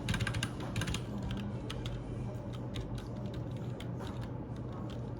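Light, irregular clicks and taps, several a second, over a steady low hum.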